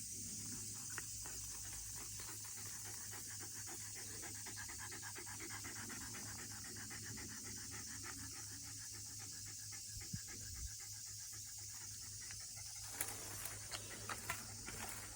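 A Shiba Inu panting rhythmically over a steady background hiss; near the end a few sharp clicks and rustling come in.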